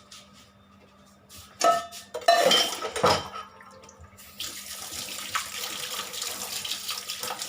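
Kitchen utensils and dishes clattering for a moment, then a kitchen tap starting to run steadily into a sink about four seconds in.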